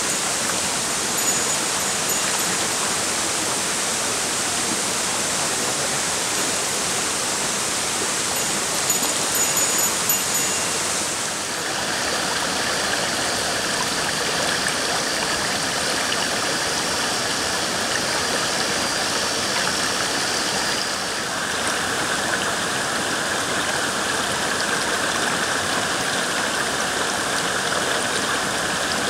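Mountain stream water rushing steadily over rocks, changing character abruptly about a third and two-thirds of the way through. A few faint high ticks sound near the start and about nine seconds in.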